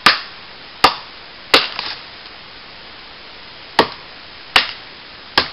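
Ontario 24-inch machete (18-inch blade) chopping into a fallen branch: six sharp chops, three in quick succession under a second apart, a pause of about two seconds, then three more at the same pace.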